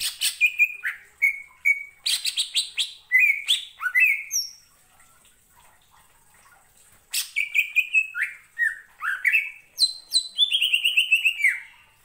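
Male green leafbird (cucak ijo) singing in two rapid, varied bursts of sharp chips, whistled slurs and falling trills, with a pause of a couple of seconds in the middle.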